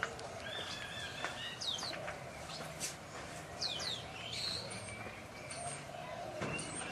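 Pacific black ducklings peeping: scattered short, high chirps that fall in pitch, coming several times over a light outdoor background.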